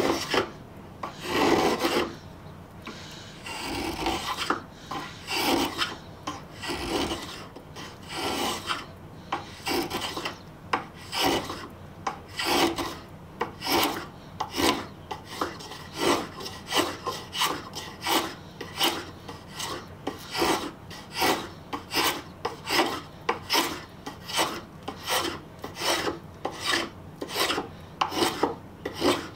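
A metal spokeshave cutting shavings off the edge of a wooden board, rounding it over stroke after stroke. The strokes are slower and longer at first, then quicker and shorter, about two a second, in the second half.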